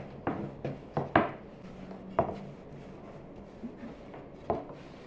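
Long, thin wooden rolling pin rolling baklava dough out thin on a floured wooden board: the pin rubs over the dough and knocks sharply against the board, several knocks in the first second and a half, then one about two seconds in and another near the end.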